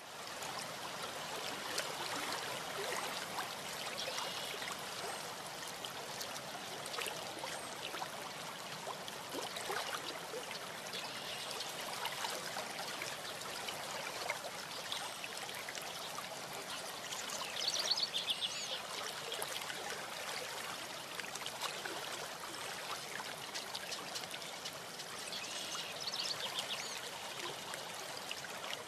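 Steady outdoor rushing ambience on a nest-camera microphone, like wind or distant running water. Small birds sing briefly, about two-thirds of the way through and again near the end.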